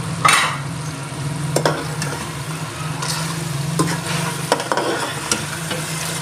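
Mutton pieces sizzling in ghee in a pot as a slotted metal spatula stirs in freshly added ground spices and crushed whole garam masala. The spatula clinks and scrapes against the pot several times, loudest just after the start, over a steady low hum.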